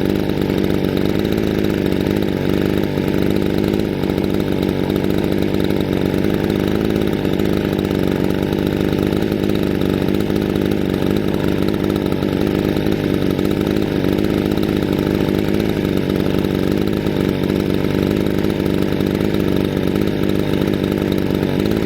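Small two-stroke chainsaw engine running steadily without a break. It keeps running because its kill switch is failing to shut it off.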